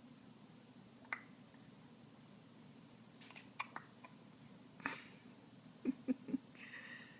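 An 18-week-old baby hiccupping: short, sudden hics spaced a second or more apart, with three quick ones close together about six seconds in.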